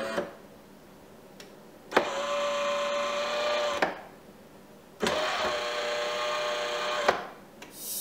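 Tchibo bean-to-brew coffee machine's pump buzzing in bursts while it dispenses coffee into a mug. One burst stops just as the clip begins, then two more come about two and five seconds in, each roughly two seconds long and starting and ending with a click.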